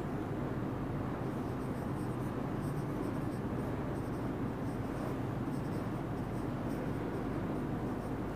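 Marker pen writing on a whiteboard, a run of faint short strokes and scratches, over a steady low room hum.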